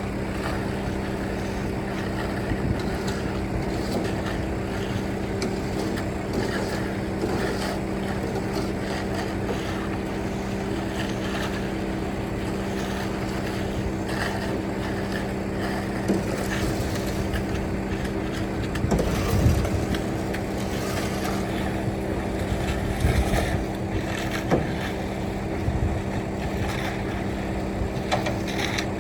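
An engine running steadily at a constant speed, with a few knocks or thumps over it in the second half and some wind on the microphone.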